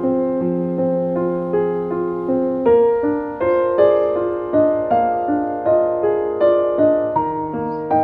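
Background piano music: held notes for the first few seconds, then a melody with notes struck about two a second.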